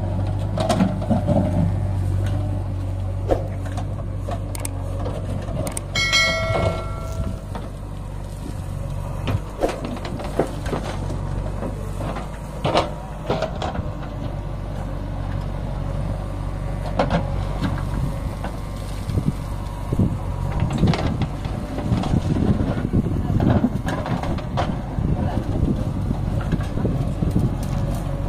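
Diesel engines of a tractor and a backhoe loader idling, a steady low hum, with scattered knocks and clatter and a short pitched tone about six seconds in.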